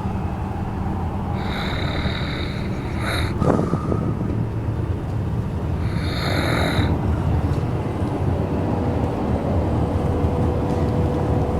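Snoring: two long snores about four and a half seconds apart over a steady low rumble, with a short sharp knock just after the first.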